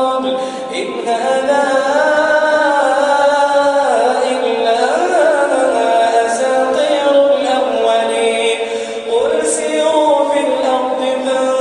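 A man reciting the Quran in melodic tajwid chant, drawing out long held notes with slow ornamented turns in pitch, with a short break and a new rising phrase about nine seconds in.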